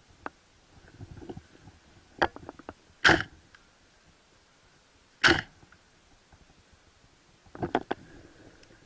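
Two sharp, loud airsoft gunshots about two seconds apart, with smaller clicks and rustling of gear and footsteps before and after them.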